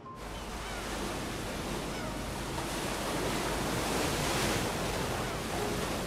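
Sea surf washing steadily onto a rocky shore, cutting in abruptly and swelling a little around the middle.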